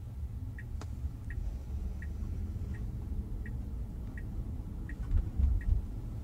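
Tesla Model Y turn-signal indicator ticking about once every three-quarters of a second during a left turn, over a low steady road rumble in the cabin; the ticking stops near the end as the turn is completed. A single sharp click about a second in.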